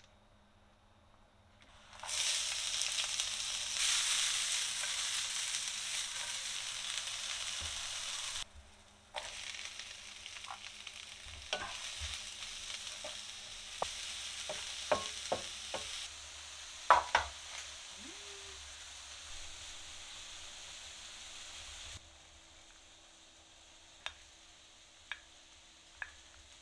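Mushrooms and leeks sizzling in a nonstick frying pan, loudest for the first several seconds, then quieter while a wooden spatula stirs them and knocks against the pan, with one loud clack in the middle. Near the end the sizzle drops away and a few light knocks come from a glass dish being handled.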